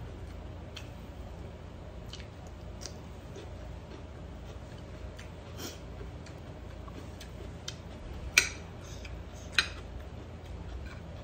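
Metal spoon clinking and scraping on a ceramic plate while scooping rice: scattered light clicks, with two sharper clinks about a second apart near the end, over a low steady hum.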